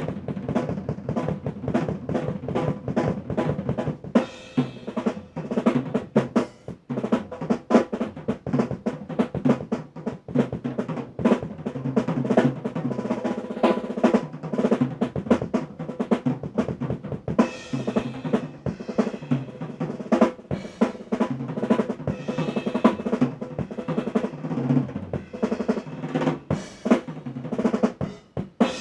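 Drum kit solo in a rock tune: fast snare rolls and fills over the bass drum, with dense, rapid strikes throughout.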